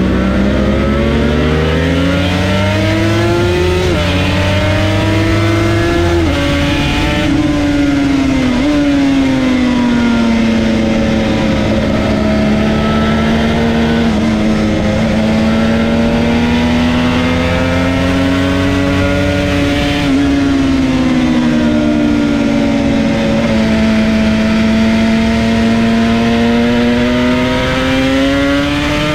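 Yamaha TZR250 1KT two-stroke parallel-twin engine running hard at track speed, heard from on the bike. The pitch climbs and drops abruptly several times in the first nine seconds as gears change, then holds a long note that slowly rises and falls through the corners.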